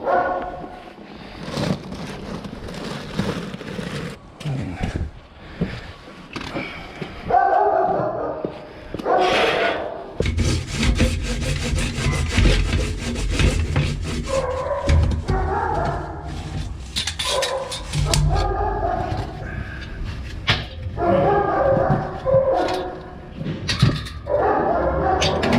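Kennel dogs barking in repeated spells. About ten seconds in, a steady low rumble with a rapid clatter of clicks starts under the barking.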